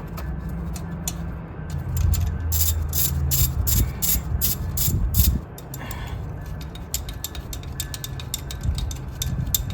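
Hand ratchet wrench clicking in quick runs while the bolts of the upper intake plenum are worked loose, with a steady low hum underneath.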